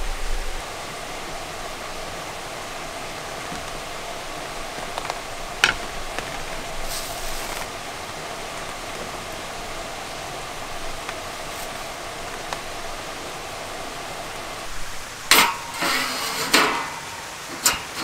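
Steady hiss of campsite ambience with a faint hum, one sharp click about a third of the way in, and a few louder knocks and clatters near the end.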